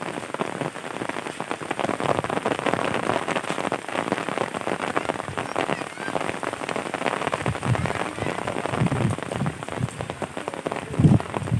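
Heavy rain falling steadily, a dense patter of drops hitting surfaces, with a brief louder low sound near the end.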